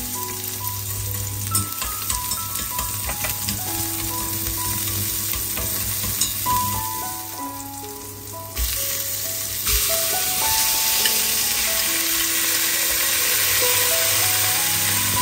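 Food sizzling in a hot pan, a steady hiss that drops away for about a second past the middle and then comes back louder. Background music plays over it.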